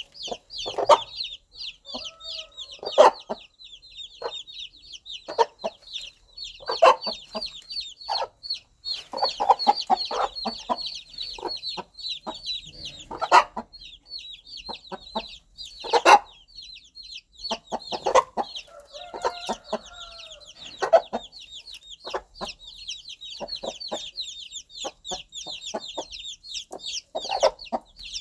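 A mother hen clucking in short, irregular low calls to her brood, over a constant high chorus of many baby chicks peeping rapidly.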